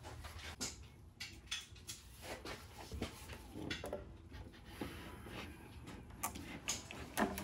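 Scattered light knocks and clicks of a metal valve cover, with its new gasket, being handled and worked into place on the cylinder head of a Mercedes M117 V8.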